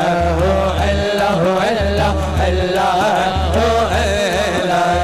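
A man singing a devotional naat in a long, wavering melody without clear words, over low bass notes that pulse about every second and a half.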